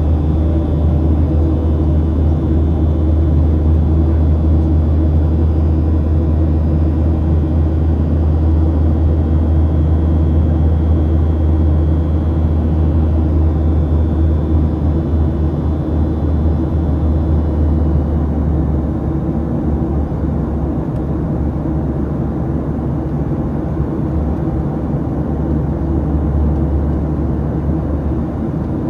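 Steady cabin drone of a Boeing 737-700 in its climb after takeoff, heard from inside the cabin: the CFM56-7B engines and the air rushing past the fuselage. The low drone eases a little about two-thirds of the way through.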